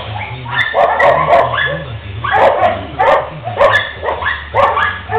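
Kennelled dogs barking repeatedly: a string of loud barks, roughly one every half second to a second.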